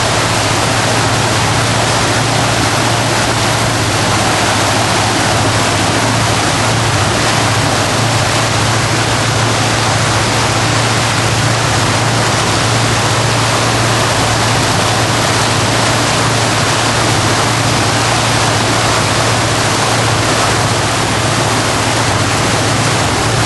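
Boat underway: steady, loud rushing of wind and water with a low, even engine drone beneath it.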